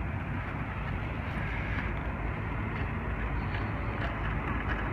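Inline skate wheels rolling steadily over asphalt, giving an even rumble.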